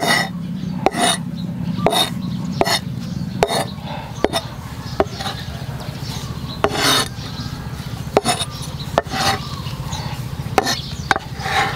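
Irregular rasping, scraping strokes, some short and some drawn out for about half a second, over a steady low hum.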